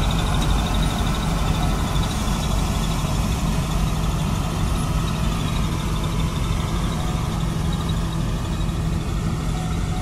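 Balkar combine harvester working in the field: a steady diesel engine drone with the continuous clatter and rush of the cutting and threshing machinery, harvesting barley.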